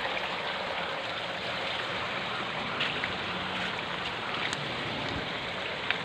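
Steady splashing of water pouring from a pipe into a tarp fish pond: the outflow of the pond's pumped water circulation.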